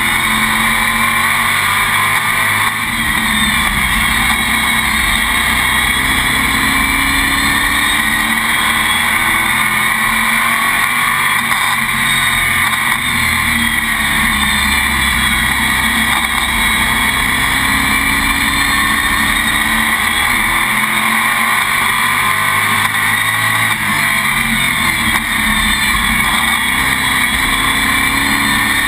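A Sportsman stock car's race engine at full song, heard from inside the cockpit. Its pitch rises and falls again and again as it accelerates down the straights and lifts for the turns of an oval.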